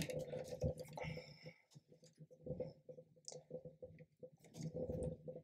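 Faint, irregular clicks and rustles of hands handling plastic 3D-printer filament and its feed tube at the extruder, with one sharper click at the start.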